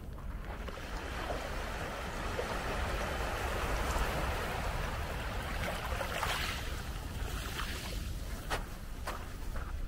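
Small sea waves lapping on a pebble shore, the water washing in and out among the stones and swelling as each wave comes in. There are a few sharp clicks near the end.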